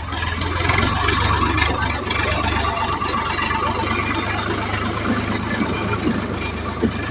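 An engine running steadily, most likely a road-construction machine, with a constant low hum and a busy rattly mid-range noise.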